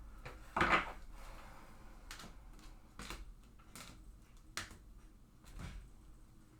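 Trading cards being handled and set down on a table: a scatter of soft clicks and taps, the loudest about half a second in.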